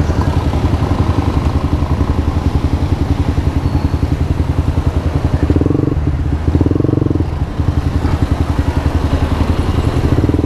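Yamaha R15 v2's single-cylinder four-stroke engine running through an aftermarket exhaust pipe, a steady pulsing note.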